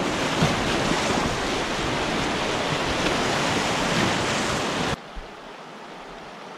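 Rushing whitewater of a small flood-swollen creek churning around the nose of a stand-up paddleboard, loud and steady. About five seconds in it cuts off abruptly to the quieter, steady hiss of the shallow creek flowing past.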